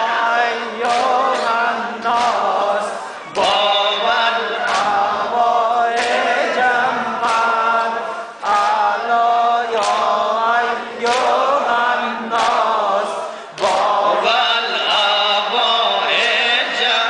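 A man chanting a Shia noha (mourning lament) through a microphone and PA, with a sharp beat about every second and a quarter that fits chest-striking (matam) by the mourners keeping time.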